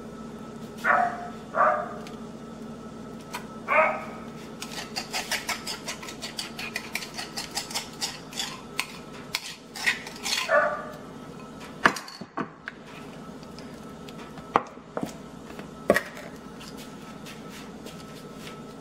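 Plastic spoon tapping and scraping against a foil-lined baking sheet as a ketchup glaze is spooned and spread over a meatloaf, with a run of quick ticks in the middle, a few short squelchy sounds of thick sauce, and some sharp clicks near the end. A steady low hum runs underneath.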